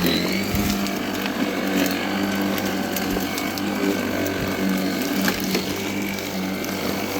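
Worx 40 cm cordless battery lawnmower running, a steady electric motor and blade hum with scattered clicks and ticks as it cuts grass.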